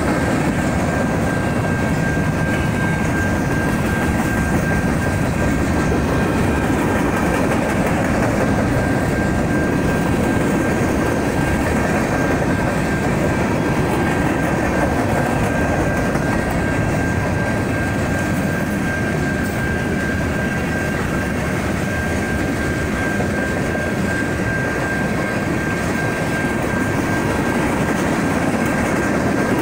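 Freight train of covered hoppers and tank cars rolling steadily past: a continuous rumble of wheels on rail, with a thin steady high tone held over it.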